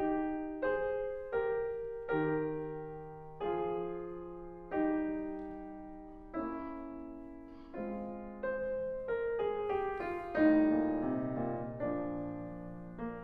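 Slow piano music: chords struck about once a second, each ringing and fading, with the notes growing quicker and fuller near the end.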